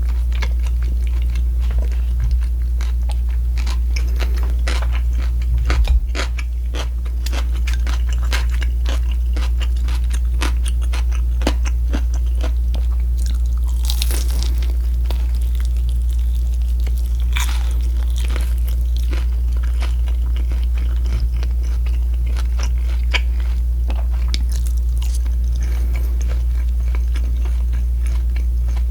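Close-miked crunchy chewing of crisp fried pork, a dense run of small crunches with a few louder bites, over a steady low hum.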